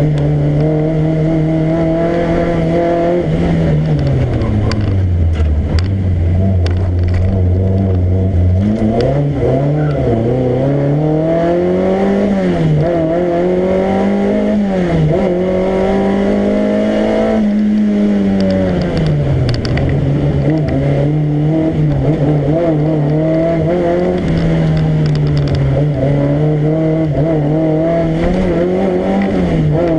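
Rally car engine heard from inside the cockpit, its revs climbing and falling again and again as the car accelerates, shifts and slows. About five seconds in the revs drop low and hold steady for a few seconds before climbing again.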